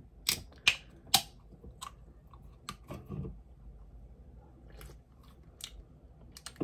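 Mouth sounds of someone sipping from a Red Bull can and swallowing, with three sharp clicks in the first second and a half and softer scattered clicks after.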